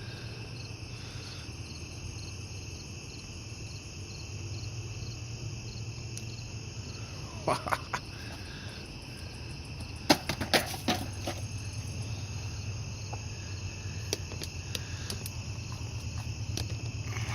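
Crickets chirping steadily over a low hum, with a few sharp clicks and clatters about halfway through as the multitool and its box are handled.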